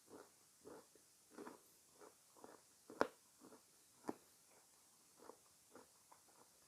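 Close-miked chewing of fresh fruit: soft, wet chews about twice a second, with a sharp click about three seconds in and a smaller one about a second later.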